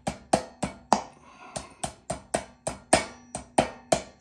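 Hammer tapping a metal fitting down onto a hand truck's wheel axle: a steady run of sharp knocks, about three to four a second, with a short break about a second in.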